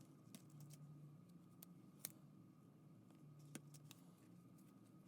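Near silence: quiet room tone with a faint steady hum and a few faint light clicks, the clearest about two seconds in.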